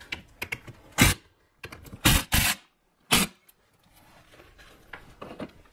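A few sharp knocks and clacks, one about a second in, two louder ones close together around two seconds, and one more about three seconds in, with lighter clicks between: tools and wooden frame pieces being handled while the frame is screwed together.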